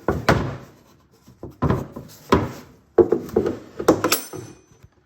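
A 24-inch vernier height gauge being handled and turned over: five knocks and scrapes about a second apart, with a brief metallic ring near the end.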